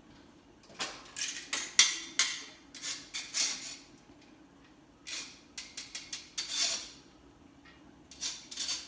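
A spatula scraping and tapping against a mesh rice strainer over a cooking pot, knocking the last of the rice out, in three spells of quick clicks and scrapes.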